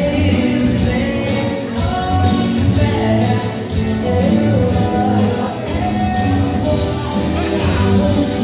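Dance music with a singer over a steady beat, playing without a break.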